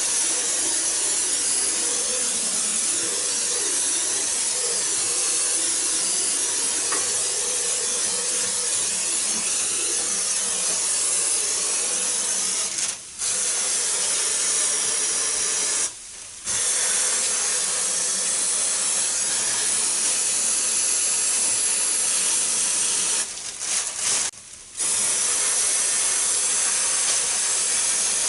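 A steady spray hissing, stopped briefly three times: cleaning liquid being sprayed into an air-conditioner indoor unit.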